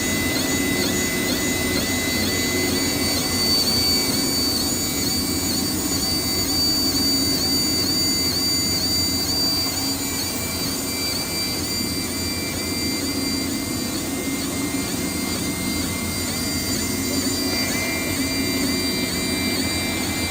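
20 W fiber laser marking machine marking a drip irrigation pipe as it moves along the production line: a high whining tone pattern that repeats about twice a second, over the steady mechanical hum of the line.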